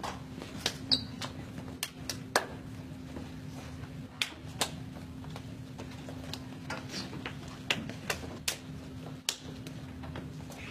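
Scattered sharp slaps and pats, irregular and a second or so apart, from hands patting and slapping as pupils are hugged and greeted one by one. Beneath them runs a steady electrical hum.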